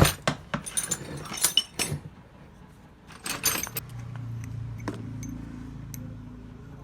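Metal parts and tools clinking and knocking together in a quick irregular run, during starter-motor repair work; a steady low hum comes in about four seconds in.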